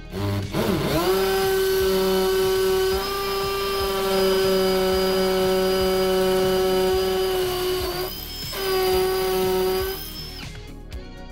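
Cordless drill spinning up and running at a steady speed as it bores into a brick wall. It stops briefly about eight seconds in, then runs again for under two seconds before stopping.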